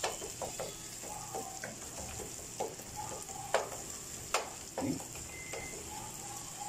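Minced garlic sizzling in oil in a frying pan while a wooden spoon stirs it, the spoon clicking against the pan several times.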